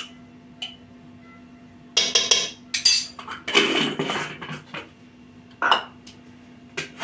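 Glass spice jars and their lids clinking and knocking as they are handled and set down on the counter: scattered sharp clinks, busiest between about two and four seconds in, over a faint steady hum.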